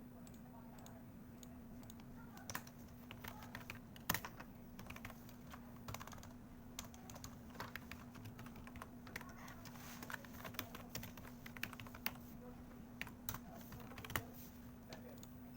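Typing on a computer keyboard: irregular runs of key clicks, with a steady low electrical hum underneath.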